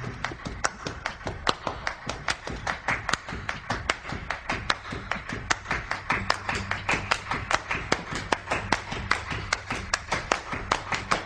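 Rhythmic hand-clapping percussion from flamenco-style backing music, sharp claps about four to five a second, with the guitar dropped out.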